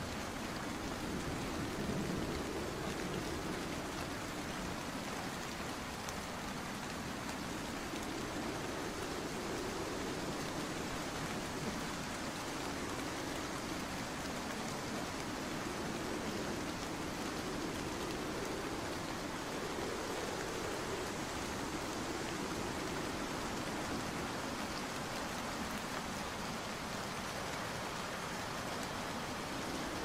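Steady rain falling, an even hiss with a lower layer that swells and fades every few seconds.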